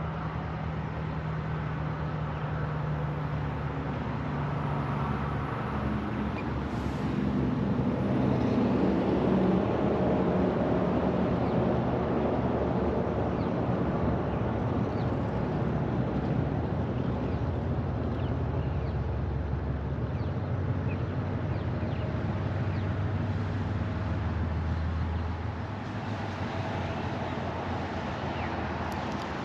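Diesel-electric freight locomotives running as the train crawls along at low speed, a steady engine drone. It swells about eight seconds in and settles to a lower note near the end.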